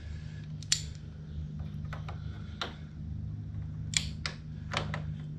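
Scattered sharp metallic clicks of a wrench and socket being worked on a motorcycle swingarm-area bolt, about six in all, the loudest about a second in and near the four-second mark. A steady low hum sits underneath.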